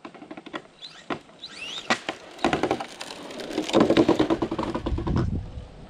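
Radio-controlled DR10 drag car driven back over coarse asphalt: a short rising motor whine, then a rough rattling and clicking as it rolls up close and stops.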